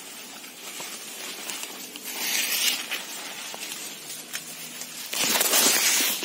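Maize leaves rustling and scraping as someone pushes through standing corn plants. There are two loud swishes, a short one about two seconds in and a longer one about five seconds in.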